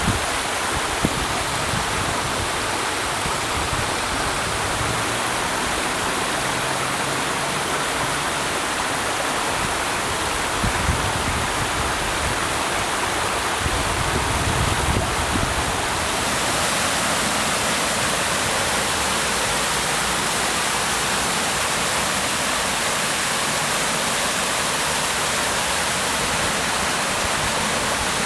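Rushing water of a small waterfall or creek cascade, a steady full hiss. About halfway through the rush takes on a brighter, hissier tone.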